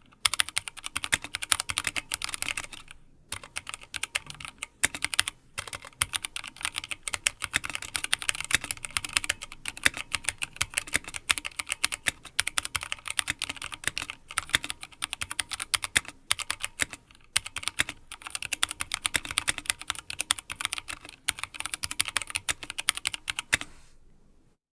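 Fast continuous typing on a Drop ALT High-Profile mechanical keyboard with Kailh Speed Silver linear switches and doubleshot PBT keycaps in an aluminum frame: a dense run of key clacks with brief pauses, stopping near the end.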